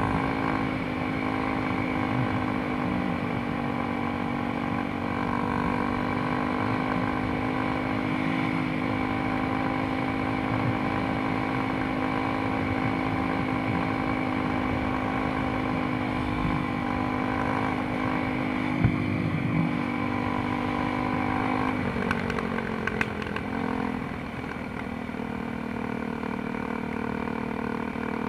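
Dirt bike engine, heard from the rider's helmet, running at a steady cruising pitch along a paved lane. A sharp knock sounds a little past halfway. About three-quarters of the way through, the revs drop as the bike slows, then the engine holds steady at a lower pitch.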